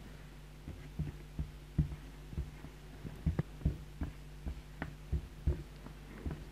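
Dry-erase marker writing on a whiteboard: a string of soft, irregular knocks and taps as the pen tip strikes and drags across the board, over a steady low hum.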